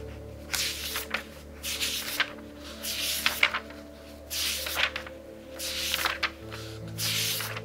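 Pages of a very thick book being turned quickly one after another, each a papery swish ending in a sharp flick, roughly one a second, over soft background music.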